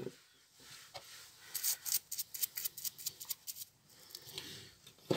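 Toothbrush bristles scrubbing the plastic gear of a BMW N53 throttle body: a run of quick, short scratchy strokes, about six a second, from about one and a half to three and a half seconds in.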